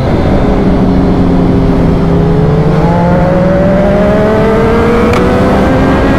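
Sport motorcycle engine heard from on board at speed, over wind rush. The engine holds a steady note, then from about two and a half seconds in it climbs smoothly in pitch as the bike accelerates.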